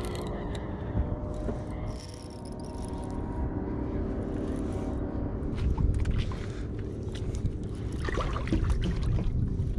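Wind rumbling on the microphone over choppy lake water slapping a boat hull, with a faint steady hum underneath. A cluster of small clicks and splashes comes about six to nine seconds in, as the hooked fish is brought toward the net.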